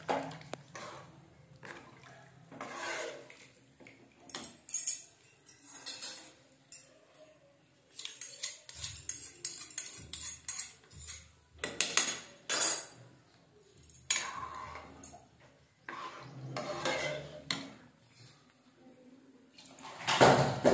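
Metal spoon and ladle scraping and clinking against a steel kadai as a thick chicken curry is stirred, in irregular strokes. Near the end, water is poured from a steel pot into the pan.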